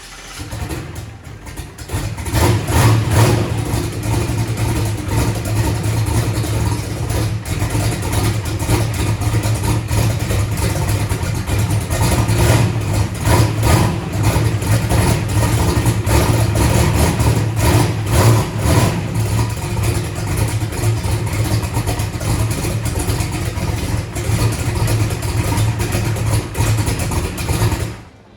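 Turbocharged drag car's engine, coming up over the first two seconds and then running at a loud, choppy, uneven idle, before cutting off suddenly near the end.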